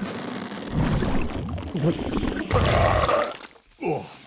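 A cartoon dragon's long, wet burp, drawn out over a few seconds and loudest near the end.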